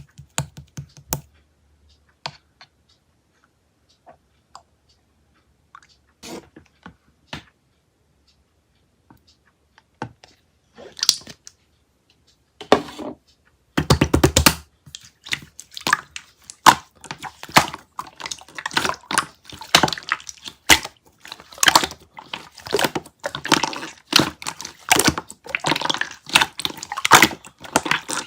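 Clear slime being handled by hand: scattered sticky clicks and pops at first, then from about halfway a dense, irregular run of crackling and popping.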